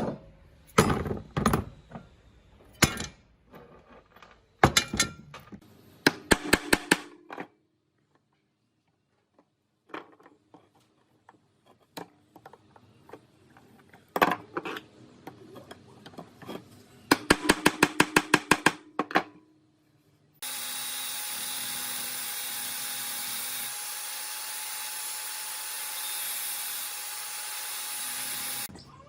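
Workshop tool sounds: sharp metal knocks and clinks, then a quick run of even taps. After that, a power tool runs steadily for about eight seconds and stops shortly before the end.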